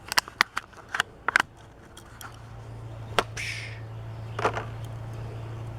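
Plastic blister pack and cardboard backing crackling and clicking as a Hot Wheels die-cast car is worked out of its package: a quick run of sharp clicks, then a few more clicks and a short scrape. A low steady hum sets in about two seconds in.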